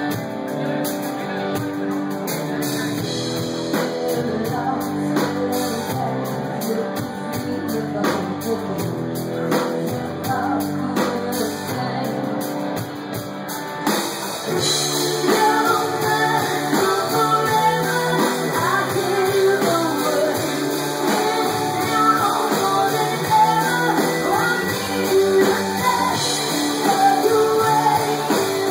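Live rock band playing: a woman singing over electric guitar and drums. About halfway through, the band gets louder and fuller and the vocal line comes forward.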